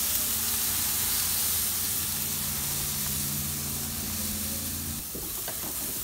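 Pork belly and chicken sizzling on a gas grill: a steady hiss, with a low steady hum underneath that cuts off about five seconds in.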